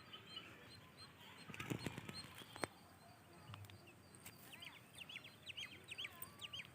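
Faint chirping of small birds: a quick series of short, high notes in the second half, with a few soft rustles and one sharp click about two and a half seconds in.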